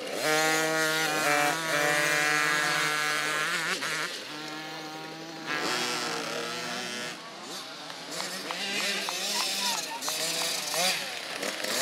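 Small children's mini motocross bike engines running hard through a turn close by, one held at steady high revs for a few seconds before its pitch swings up and down as the throttle changes, then further bikes passing.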